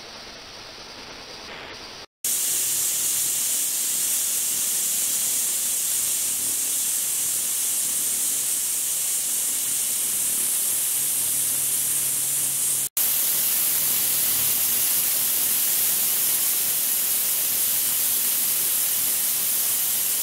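Ultrasonic cleaning bath running, its transducer driving the water: a steady, high hiss of cavitation. It is quieter for the first two seconds, then louder after a sudden cut, with a brief dropout about thirteen seconds in.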